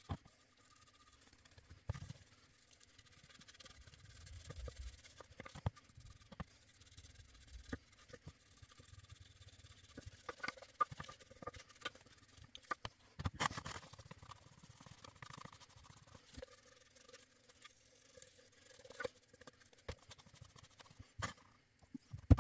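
Faint brushing and rubbing of a paintbrush working black paint into the inside of a small wooden box, with scattered light knocks and clicks of the box and tools on the tabletop and a louder patch of scrubbing about two-thirds of the way in.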